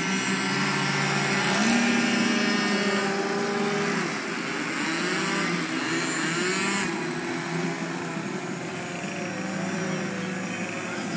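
Several radio-controlled aerobatic model airplanes hovering together, their engines and propellers running at once, with several pitches rising and falling as the throttles are worked. The sound grows somewhat quieter about seven seconds in.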